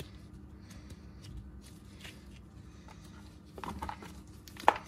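Gloved hands working a stiff, plasticine-like paste: quiet rustling and small clicks as it is pinched and shaped, with a short cluster of clicks and then one sharp tap near the end.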